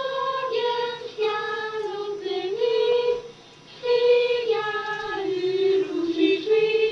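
Girls' voices singing a slow Lucia song together on one melody line, in long held notes, with a short breath pause about halfway through.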